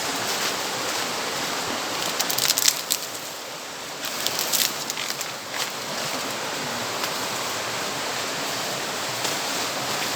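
Steady rush of a stream and waterfall, with short rustling crackles about two and four seconds in.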